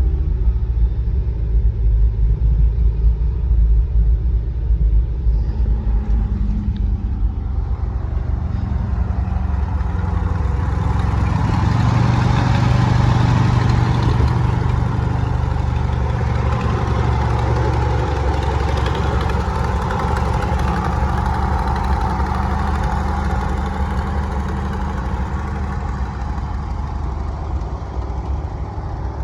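The V304 V8 engine of a 1968 International 1500C dump truck running steadily with a low rumble. It grows fuller about ten seconds in and eases back in the last few seconds.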